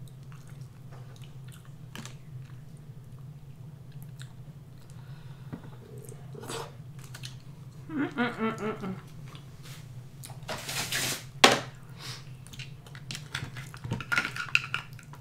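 Close-up eating sounds of king crab legs: chewing and wet mouth sounds with scattered clicks and crunches as the shell is picked apart, the sharpest snap about eleven seconds in. A short hummed murmur about eight seconds in, over a steady low background hum.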